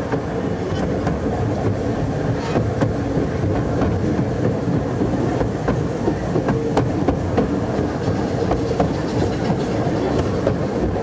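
A 12¼-inch gauge miniature railway train running along the track: a steady rumble from the wheels, with irregular sharp clicks as they pass over rail joints.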